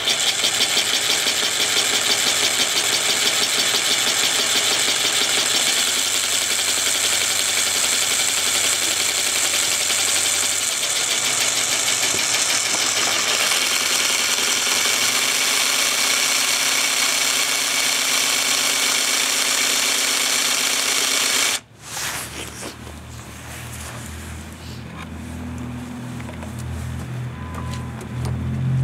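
Cordless jigsaw cutting through tile, the blade rasping steadily for about twenty seconds before the saw stops abruptly.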